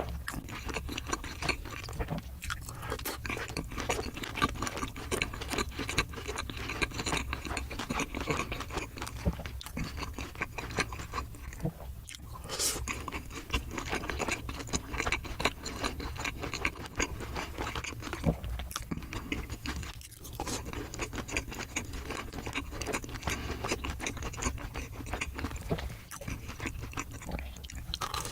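Close-miked chewing and crunching of crispy fried food: a dense run of small crunches, bites and mouth sounds, over a steady low hum.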